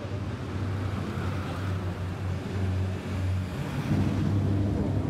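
Car engine running at low speed as a car rolls past, a steady low hum. A second, deeper engine comes in louder about four seconds in.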